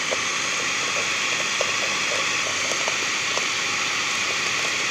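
Electric beater running steadily at an even pitch, its twin beaters whisking eggs and sugar into a batter in a pan.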